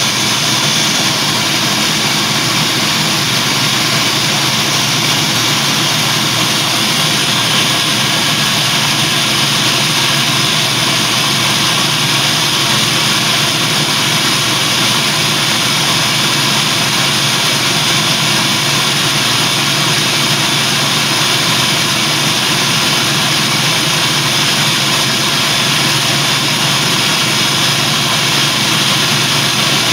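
Electric blender running steadily and without a break, pureeing a food mix while its lid is held down by hand.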